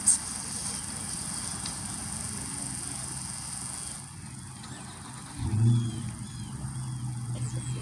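Quiet outdoor background, then about five and a half seconds in a motor vehicle's engine comes in. It gives a low drone that swells briefly and then runs steadily.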